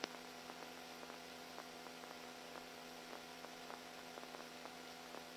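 Faint steady electrical hum and hiss with light irregular ticking: the open radio audio feed between transmissions.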